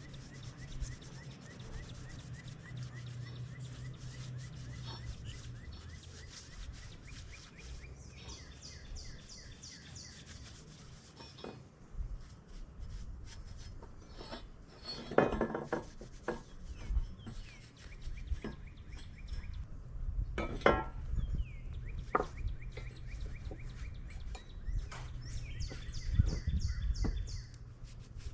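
Fast, continuous hand-scrubbing strokes on a backhoe part being cleaned for paint, with a few sharper knocks in the middle. Birds chirp in the background.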